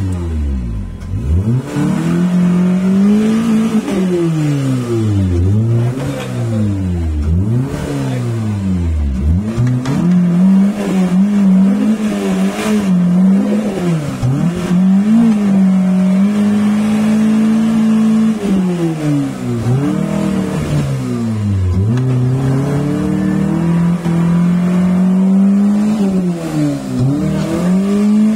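Off-road 4x4 jeep's engine revving hard in deep mud, the revs climbing and dropping again and again about once a second, then held high for a few seconds at a time in the second half as the jeep fights for grip.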